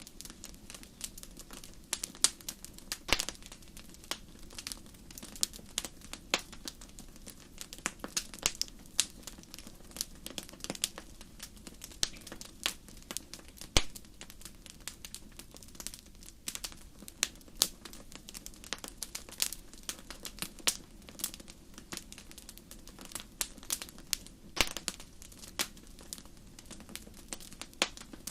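Campfire crackling: irregular sharp pops and snaps of burning wood, several a second, over a low steady rumble.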